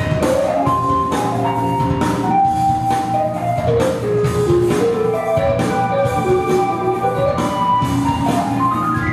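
Instrumental break of a pop song's backing track, with no singing: a melody of short stepped notes over a drum beat and a steady bass line.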